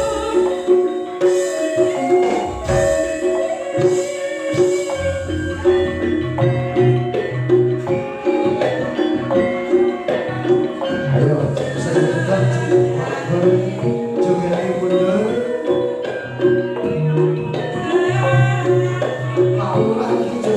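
Javanese campursari music playing steadily: percussion with melodic notes struck on mallet instruments over a repeating bass line.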